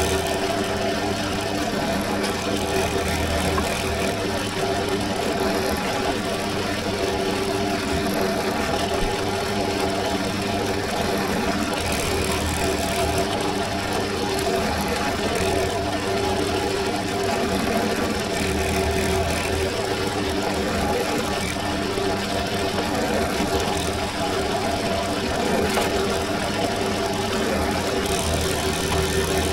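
Bench drill press running steadily with a humming motor, a fine bit drilling stitching holes through a leather sheath face; a low rumble swells every few seconds.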